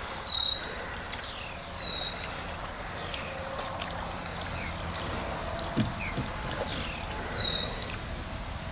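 Double-bladed kayak paddle dipping and pulling through calm lake water in unhurried strokes, each one a soft splash. High chirps sound every second or so in the background.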